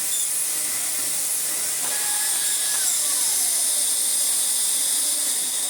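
Vacuum cleaner running below full power, with a steady rush of air through the suction. A faint whine falls in pitch a few seconds in.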